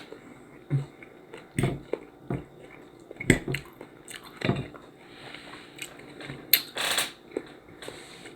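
A person chewing and biting food, with irregular short mouth and eating sounds every second or so.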